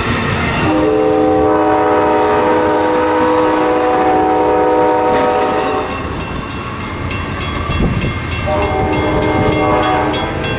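Train horn sounding a multi-note chord in a long blast of about five seconds, then a shorter blast a few seconds later, over the low rumble of a passing train. A fast, even ringing or ticking runs through the second half.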